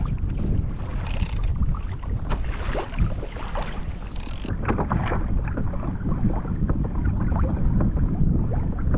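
Wind buffeting the microphone, with water slapping and splashing against a kayak hull.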